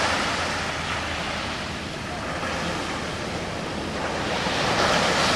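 Ocean surf washing up the beach, a steady rushing hiss that eases off and then swells again near the end as the next wave comes in.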